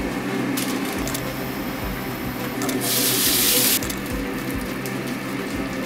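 Dumplings sizzling in a hot frying pan: a steady hiss over a low hum, with a louder burst of hissing about three seconds in.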